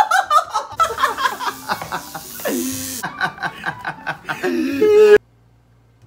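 Men laughing and giggling in bursts, which stop suddenly about five seconds in.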